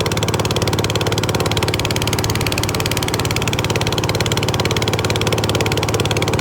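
An engine running steadily at idle, with a fast even pulse and a low hum.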